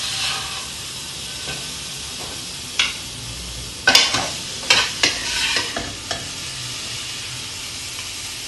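A plastic spatula scraping and knocking against a metal frying pan as cooked chicken strips are scooped out onto a plate, over a light sizzle from the pan. A few sharp knocks fall around the middle.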